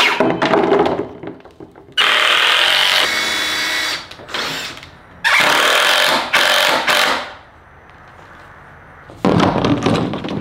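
Cordless power tools at work on a wooden frame build. A circular saw cutting plastic gutter winds down in the first second. A cordless drill then drives screws into pine framing in two separate runs with short bursts between them, a steady whining buzz each time.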